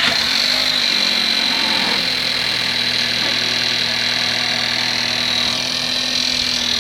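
Skoda Kodiaq engine idling just after starting, with a steady high whine over the engine note.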